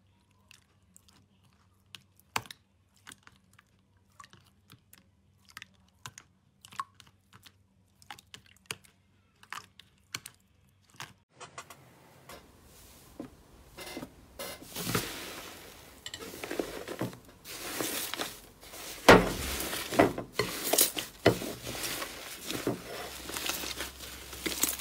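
Hands squishing sticky clear slime, with scattered small clicks and pops. About halfway through it changes to thick blue slime being squeezed and kneaded, a denser and louder crackling that peaks near the end.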